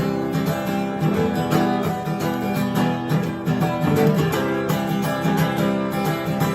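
Acoustic guitar strummed in a steady rhythm: an instrumental passage between the verses of a song.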